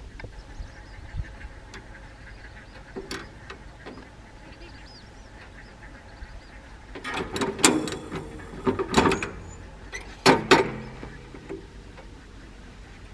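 Clicks and metal clanking from the twine tensioner and guide of a small square baler as twine is threaded through it by hand, with loud clattering clanks about seven seconds in and again about ten seconds in.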